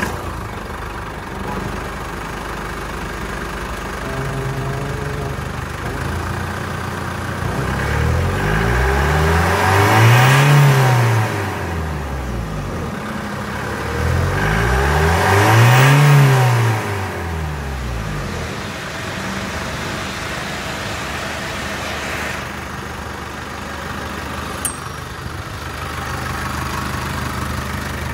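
2013 Holden Colorado's four-cylinder turbo-diesel engine idling, just started, then revved up twice and let fall back to idle about ten and sixteen seconds in, in a running test of the engine.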